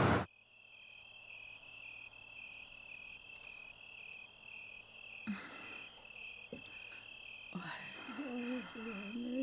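Crickets chirping in an even, pulsed trill. About eight seconds in, a low wavering tone joins them.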